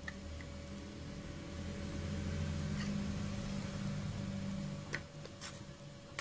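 A few light, sharp clicks of the opened thermostat controller's plastic case and circuit board being handled, over a low hum that swells about halfway through and then fades.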